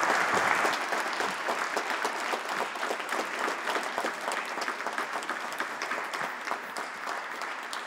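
Applause from an audience and from the people on stage, loudest at the start and slowly dying down.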